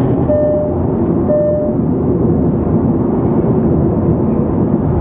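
Steady road and engine noise inside the cabin of a Changan CS75 SUV driving at highway speed. A dashboard warning chime beeps twice, about a second apart, in the first two seconds.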